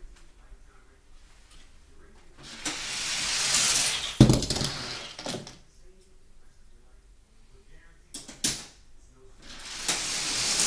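Die-cast Hot Wheels cars rolling down an orange plastic track, a rising whir that ends in a sharp clattering impact about four seconds in, followed by a few small clicks. A second car's rolling whir builds again near the end.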